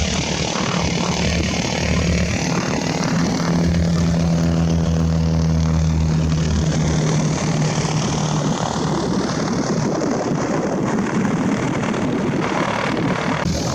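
Small propeller aircraft's piston engine running: a steady low drone for about the first half that gives way to a rougher, more rushing engine noise.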